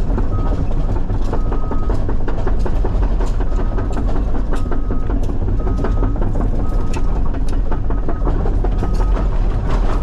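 CAT 323 excavator running under load, with its steel tracks and bucket clanking and rattling, while a backup alarm beeps over and over.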